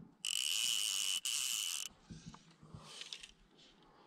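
A fly reel's click drag buzzing in two bursts of about a second each, with a short break between them, as fly line is pulled off the reel. A few softer clicks and handling noises follow.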